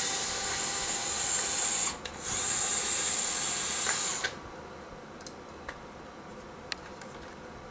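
DeWalt cordless screwdriver running on the screws of an RC truck's chassis in two bursts of about two seconds each, with a short break between them. It stops about four seconds in, leaving only a few light clicks.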